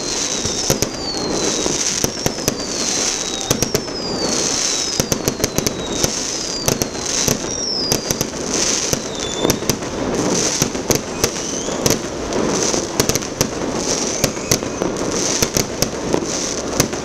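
New Year fireworks: aerial shells and firecrackers bursting in a steady stream of sharp bangs and crackle. A high whistle that falls in pitch recurs about every second and a half.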